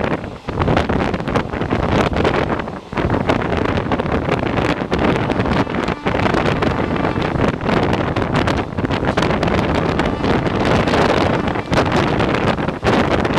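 Wind buffeting the microphone over the steady running noise of a train moving at speed, heard from on board, with brief dips in the rush about half a second in, near three seconds and near six seconds.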